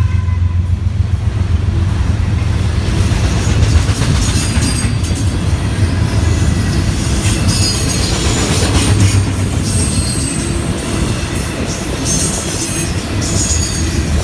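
BNSF double-stack intermodal train's well cars rolling past close by: a loud, steady rumble of wheels on the rails. Short high-pitched wheel squeals come and go through the second half.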